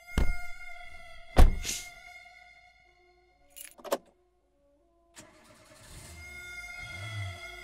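Truck sound effects: two heavy thuds over a steady high tone, then a silent gap. About five seconds in comes a click and a truck engine starting up, its low rumble building toward the end.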